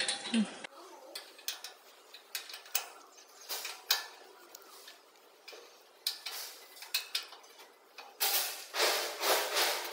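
Galvanised sheet-metal duct elbow section clinking and scraping as it is turned through a round duct elbow making machine. The clicks come irregularly, with a louder run of rasping scrapes near the end.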